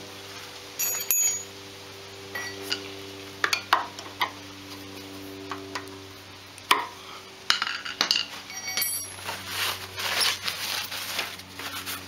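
Metal hand tools and small parts clinking and tapping as they are handled and set down, a couple of the strikes ringing briefly, over a steady low hum.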